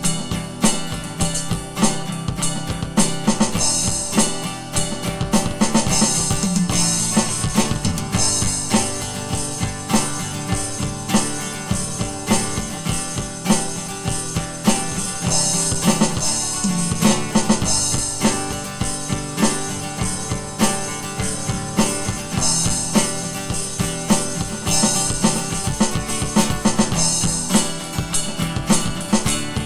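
Aroma TDX-21 electronic drum kit played in a steady groove: the sound module's kick, snare and tom samples, in a user-set kit, with cymbal crashes swelling every few seconds.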